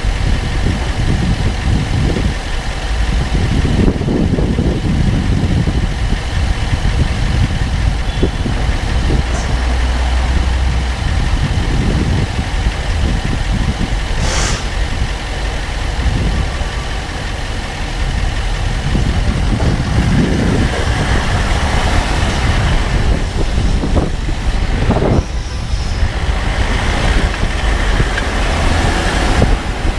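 2014 Range Rover Sport SDV8 moving at low speed: a steady low vehicle rumble with a few sharp clicks, the loudest about halfway through. The clicks are the low-speed clicking noise whose cause the owner has not found.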